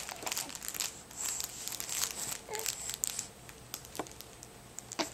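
Crinkle material inside a soft fabric peacock baby toy crackling and rustling irregularly as a baby grabs and squeezes it.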